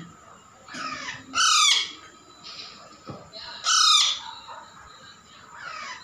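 Young Alexandrine parakeet calling: two loud, short, harsh calls about a second and a half and four seconds in, with fainter calls in between.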